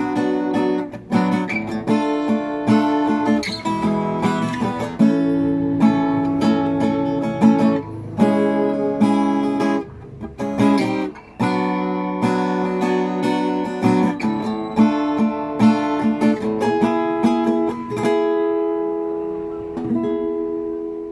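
RJ Manila acoustic guitar played unplugged, with strummed chords in a steady rhythm. Near the end a final chord rings out and fades.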